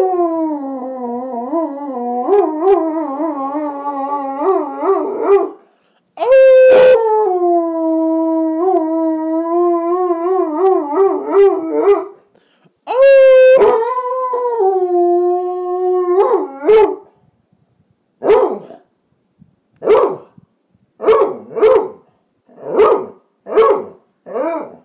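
Basset hound howling: three long, wavering howls, each starting on a loud high note and sliding down to a lower pitch. Near the end it gives a run of about seven short yips.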